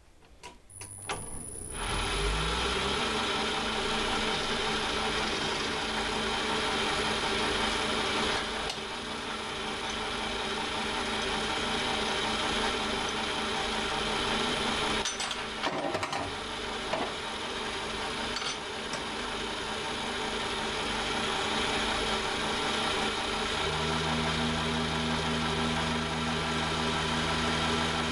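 Emco Maximat V10-P metal lathe switched on. After a couple of clicks its VFD-driven motor speeds up, rising in pitch, and then runs steadily with the chuck spinning. There is a short break in the sound about halfway through, and a deeper hum joins near the end.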